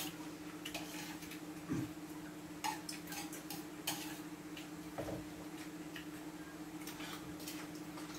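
Metal spoons clinking and scraping against ceramic and steel bowls at irregular intervals while people eat, over a steady low hum.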